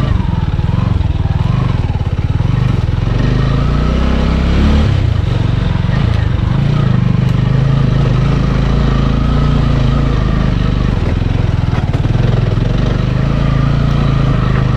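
Motorcycle engine running steadily at low revs, its pitch shifting only slightly.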